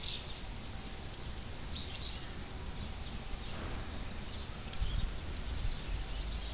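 Quiet outdoor background noise: a steady high hiss with a few faint, short high chirps. A low rumble on the microphone starts about five seconds in.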